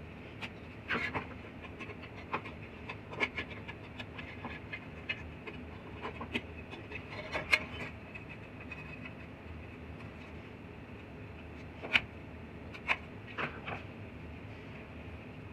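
Scattered light clicks and taps at irregular intervals over a steady low hum, two of them noticeably sharper than the rest.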